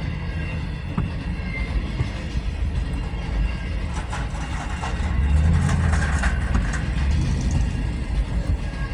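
Freight cars of a CSX freight train rolling past with a steady low rumble, scattered knocks and rattles, loudest about halfway through.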